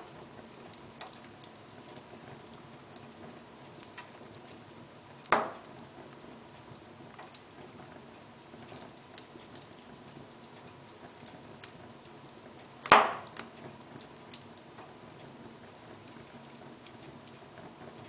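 Wood fire crackling in a fireplace: a steady faint hiss with scattered small ticks, and two sharp loud pops about five seconds and thirteen seconds in.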